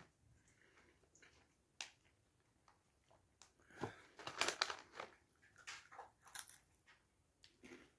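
Plastic snack bag rustling as a hand reaches in, then crunching as a chocolate-coated corn puff is bitten and chewed. Faint throughout, the bag rustle the loudest part, about halfway through.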